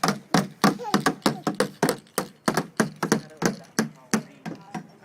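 A hammer tapping quickly and unevenly, about three to four sharp blows a second, as a small child keeps hammering.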